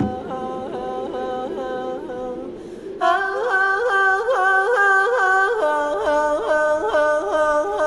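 A woman's voice singing a cappella: a long melodic line full of quick repeated turns in pitch. About three seconds in the voice grows louder, and it steps down in pitch twice.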